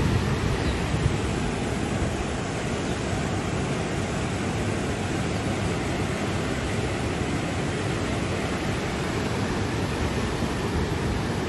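Flowing water rushing in a steady, continuous roar, slightly louder in the first second.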